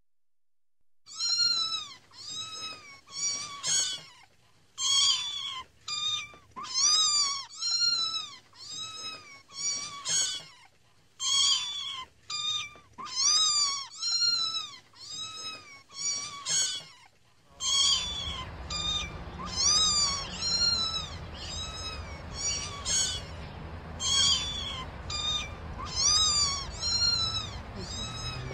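Kittens mewing over and over in short, high-pitched calls, each rising and then falling in pitch, one or two a second, starting about a second in. Past the middle a steady low background noise comes in beneath the mews.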